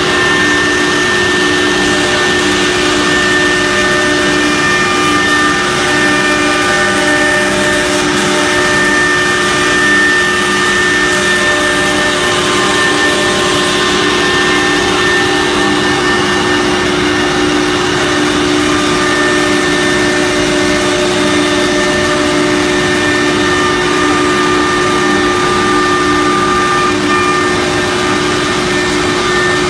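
CNC router with a 6 kW HSD spindle cutting a particleboard sheet, its dust extraction running. It makes a loud, steady machine whine of several held tones over a dense rushing noise that doesn't let up.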